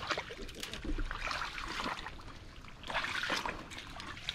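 Wet mud and shallow water squelching and trickling as a crab hook is pushed and worked into a crab's burrow. There are two louder spells, about a second in and again around three seconds in.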